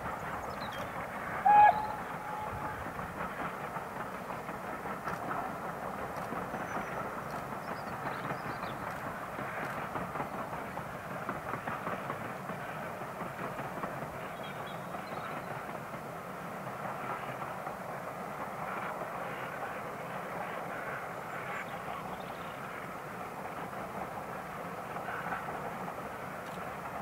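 Steam train passing at a distance: SR Schools Class three-cylinder 4-4-0 locomotive and its coaches running along the line with a steady, even running noise. About a second and a half in, one brief, loud hoot cuts through.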